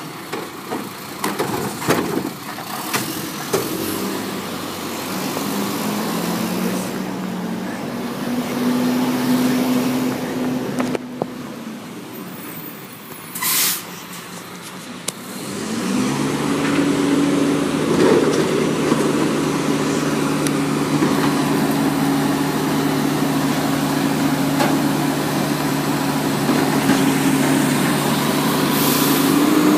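Automated side-loader garbage truck working: the engine and hydraulics rise to a steady higher-pitched hum twice, first for a few seconds and then for much of the second half, while the arm lifts and dumps wheeled carts. There are knocks and clatter from the carts early on, and a short air hiss about halfway through.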